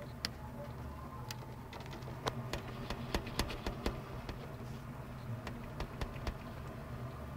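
A budgerigar tapping and pecking its beak against its cage mirror: a string of sharp, irregular clicks, most dense about two to four seconds in, over a steady low hum.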